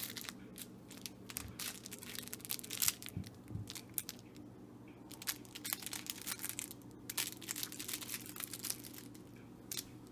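Mini wirehaired dachshund puppy chewing and tugging at plush toys, making repeated bursts of crinkling and rustling, over a steady low hum.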